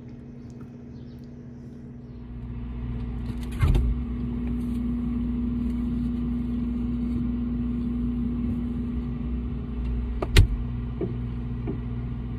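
Refrigerator humming steadily with its door open, the hum starting about two seconds in. A clunk comes a few seconds in and a sharp thump, the loudest sound, near the end.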